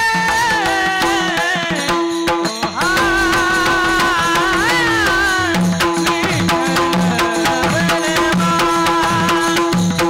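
Devotional kirtan music: a voice sings a bending melodic line over steady held notes, with tabla and percussion keeping an even beat.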